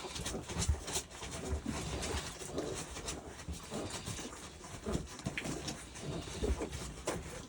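Three-week-old mastiff puppies making short, irregular little vocal sounds, with soft bumps and shuffling among them.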